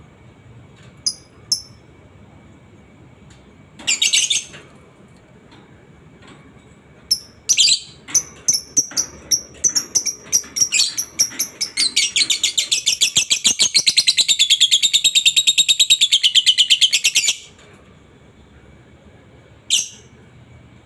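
Lovebird doing its 'ngekek' chatter: a few sharp high chirps, then a run of calls that quickens into a long, fast rattling trill of about eight or nine notes a second, which stops suddenly, followed by one last chirp.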